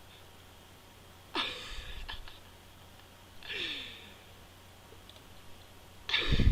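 A man's short breathy exhalations, three times about two seconds apart, each with a slight falling pitch. The last near the end is the loudest, with a low bump like breath hitting the microphone.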